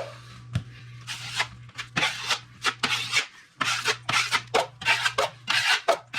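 Drywall trowel spreading 20-minute quick-set joint compound over the seams of a drywall patch for the first coat: a run of short scraping strokes, about three a second, with a brief pause about three seconds in.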